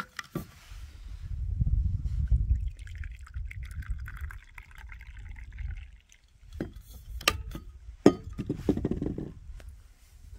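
Coffee pouring from a stainless steel thermos flask into a wooden kuksa cup: a thin stream of liquid running for a few seconds. Several sharp clicks and knocks follow near the end.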